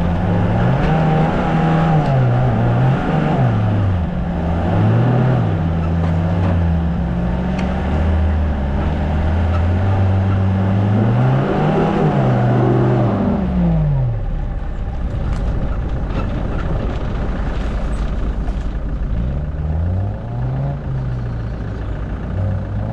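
Off-road 4x4's engine revving up and down repeatedly under load. About halfway through the revs drop to a lower, steadier running, then rise and fall again near the end.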